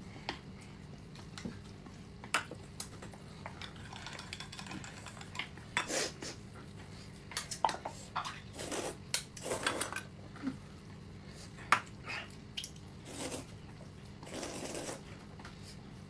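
Someone eating noodles: chopsticks clicking against a bowl now and then, with several short noisy slurps.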